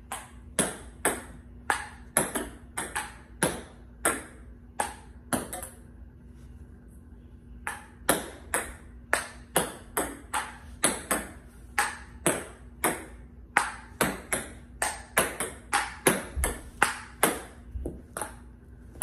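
Table tennis ball clicking off a paddle and bouncing on the table over and over, about two sharp pings a second, with a short break about six seconds in. These are forehand strokes played with side spin to make the ball curve.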